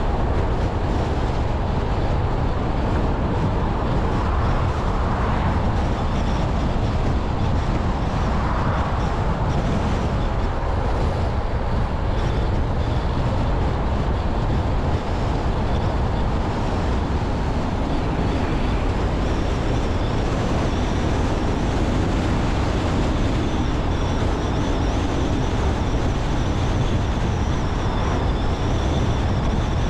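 A car driving along a road: steady tyre and engine rumble with no breaks or changes in level, and a faint high whine that comes in partway through.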